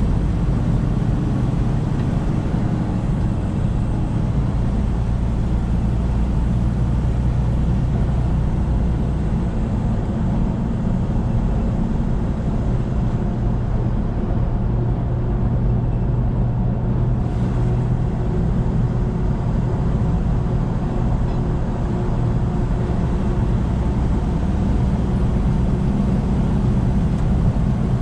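Truck engine and road noise, a steady drone while driving at constant speed.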